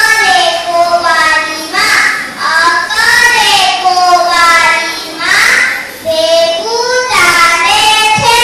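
A young girl reciting Nepali verse in a sung, chanting style into a microphone, with long held notes that bend in pitch and short breaks between phrases.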